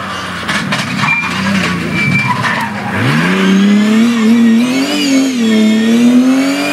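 BMW E36 Compact rally car sliding through a dusty bend, its tyres scrabbling and skidding. About three seconds in its engine revs up sharply and stays high as the car accelerates away, the pitch wavering.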